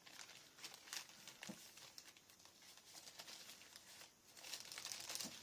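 Faint rustling and light ticks of paper and chipboard pieces being handled, a little louder near the end.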